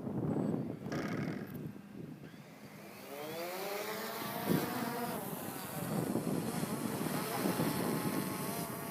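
DJI Phantom Vision+ quadcopter's motors and propellers spinning up about three seconds in, a buzzing whine that rises in pitch and then settles into a steady buzz, with wind noise on the microphone before it.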